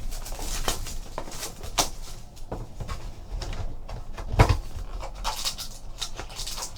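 Rustling and scattered taps of a trading card box and its packs being opened and handled, with a louder thump about four and a half seconds in.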